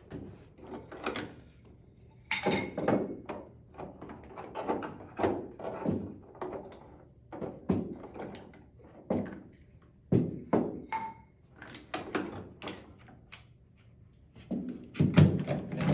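Tool cart parts being unpacked and set down: irregular knocks and clunks, one after another, the loudest cluster near the end.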